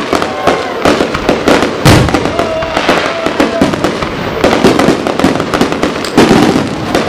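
Fireworks display: aerial shells bursting in quick succession, a dense, continuous run of bangs and crackles, with heavier booms about two seconds in and again near the end.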